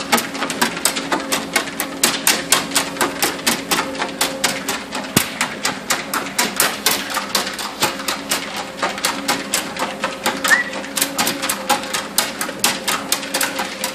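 Treadmill motor humming steadily under a quick, even patter of about four taps a second: a pug's paws and claws striking the moving belt as it walks.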